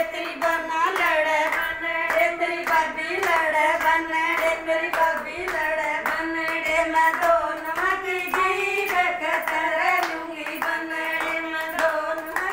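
Women singing a folk song with steady rhythmic hand clapping.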